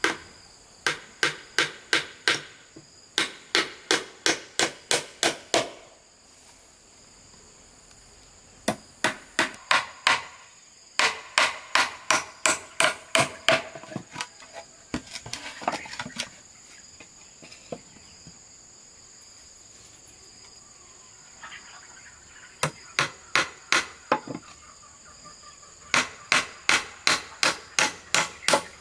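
Hammer driving nails into wood in runs of quick strikes, about four a second, with pauses between the runs. Insects trill steadily and high behind it.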